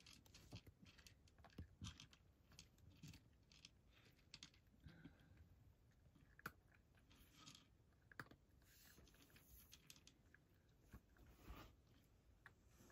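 A cat crunching and chewing dry kibble from a bowl: faint, irregular crunches.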